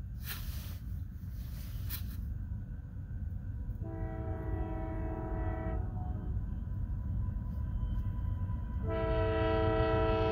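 Horn of a GE Evolution-series freight locomotive, a Nathan Airchime K3LP, sounding for a grade crossing: one long chord-like blast of about two seconds, then after a gap of about three seconds a second long blast that begins near the end and is still sounding. A steady low rumble lies underneath.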